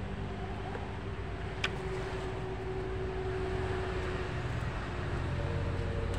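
Steady low rumbling background noise with a faint hum, and a single sharp click about a second and a half in.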